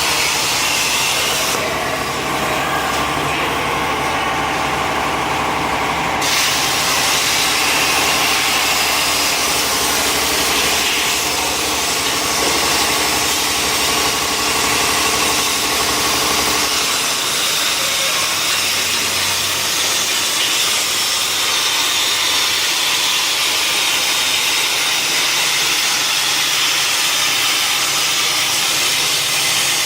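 CNC plasma cutter torch cutting metal plate: a loud, steady hiss of the arc and air jet with some steady tones. A low hum drops away about 17 seconds in.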